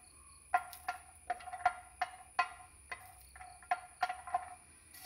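Wooden spatula stirring garlic cloves in a nonstick frying pan: irregular knocks of the spatula and cloves against the pan, about two or three a second, each ringing briefly.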